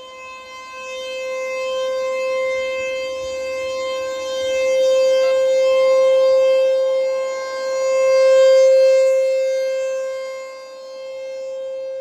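ASC T-128 rotating outdoor warning siren sounding a steady single tone during a siren test, its loudness swelling and fading as the rotating horn turns toward and away from the listener.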